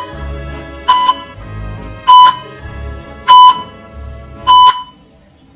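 Hospital heart-monitor sound effect: four short, loud electronic beeps, about one every 1.2 seconds, over low background music that fades out near the end.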